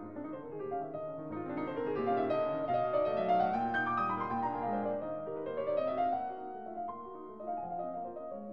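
Background piano music, with rising runs of notes about three and six seconds in.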